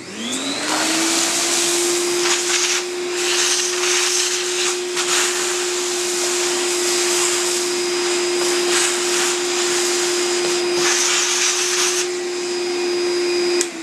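Vacuum cleaner switched on and spinning up to a steady whine, sucking acrylic chips off a CNC router bed through its hose, with irregular surges of rattling hiss as chips go up the nozzle. It is switched off near the end, its pitch falling as the motor winds down.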